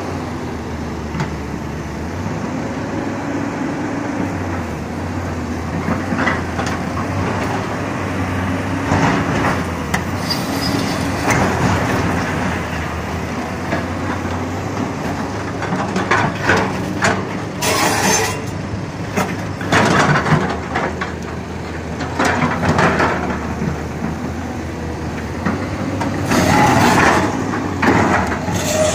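Hyundai 210-7 crawler excavator's diesel engine running steadily, with the steel bucket scraping and knocking against large rock boulders again and again, loudest in the second half.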